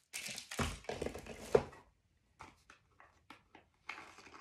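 Handling noises as a small wax-warmer light bulb is fiddled with by hand: rustling with a low thump about half a second in and a sharp click about a second and a half in, then a few light clicks and more rustling near the end.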